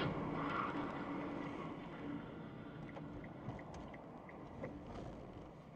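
Steady road and engine noise inside a moving car's cabin, picked up by a dashboard camera, slowly fading. About halfway through come faint ticks, about three a second.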